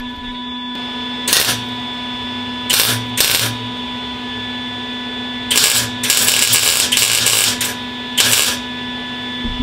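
MIG welder arc crackling in a series of short tack welds on a sheet-steel quarter-panel patch: about six zaps, most a fraction of a second long, with one longer run of about a second and a half just after the middle, over a steady low hum.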